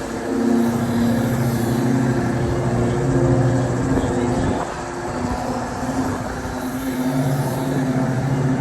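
Amusement ride machinery running with a steady, loud motor hum.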